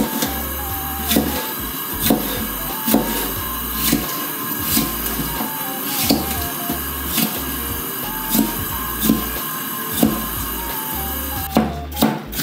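Chef's knife slicing bell peppers into strips, the blade knocking down onto the cutting board roughly once a second and more quickly near the end, over background music.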